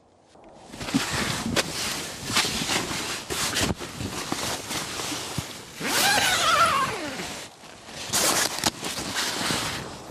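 Nylon tent fabric and gear rustling and shuffling as a camper gets up and climbs out of a tent, with a long zipper pull about six seconds in. Steps in snow near the end.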